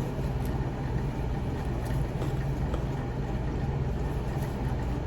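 Steady low hum of a running appliance motor or fan, with a few faint light clicks over it.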